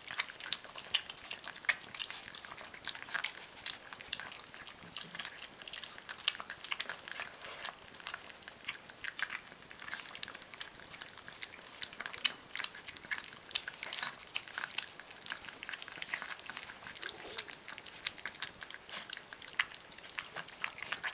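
Rhodesian Ridgeback puppies eating cereal rings in milk from a plastic plate: a busy, irregular patter of wet chewing, smacking and lapping clicks.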